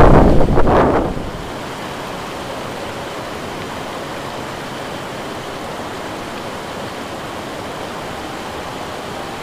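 Fast-flowing river water rushing steadily. In about the first second a loud rumbling buffet on the microphone covers it, then cuts off sharply.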